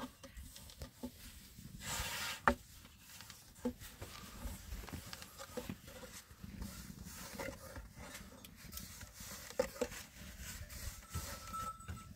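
Long thin wooden rolling pin tapping and rolling over flatbread dough on a round board, a series of light scattered knocks, with a short rustle about two seconds in.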